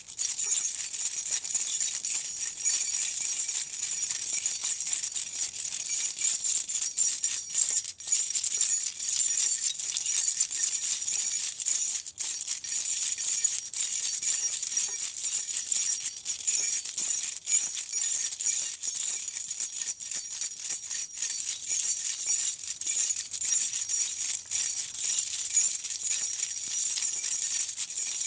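A bunch of metal keys jangling and clinking against each other, shaken continuously in a dense, bright rattle with a couple of brief pauses.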